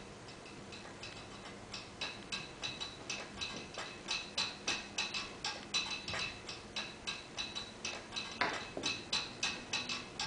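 Clock ticking in the dance piece's music track, about three sharp ticks a second, growing louder about two seconds in. A brief rising sweep sounds just past eight seconds in.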